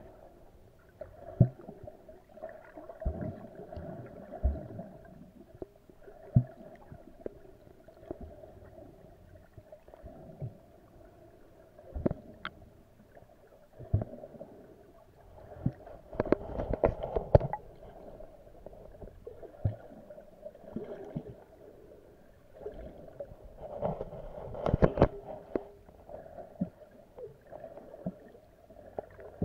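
Muffled underwater sound of moving water heard below the surface: a steady dull wash with gurgles and irregular small knocks, denser clusters of knocks about 16 and 24 seconds in.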